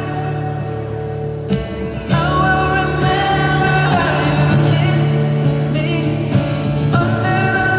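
Live pop song played over a stadium PA: a sung vocal line over acoustic guitar and sustained backing. There is a short break about one and a half seconds in, and then the music comes back a little louder.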